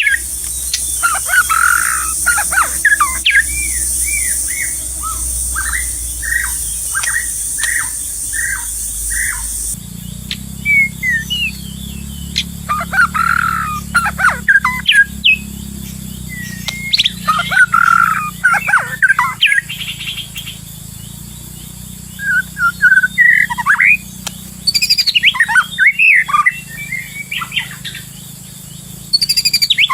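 White-rumped shama calling: runs of short, downward-sliding whistled notes mixed with harsher squawky calls, coming in clusters. A high insect drone runs under the first third and cuts off suddenly about ten seconds in.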